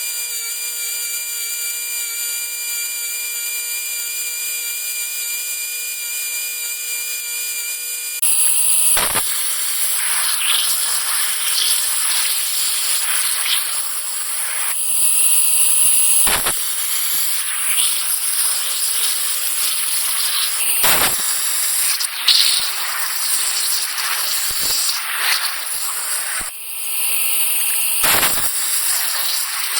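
A power tool working metal: a steady multi-tone whine for about eight seconds, then harsher cutting and grinding noise with scattered sharp knocks.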